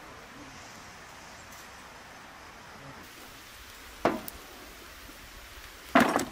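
Faint steady outdoor hiss. About four seconds in there is a sharp clank as a large metal tray is set down on a wooden table. Near the end a louder thud rings off the tray as a whole raw lamb carcass is laid onto it.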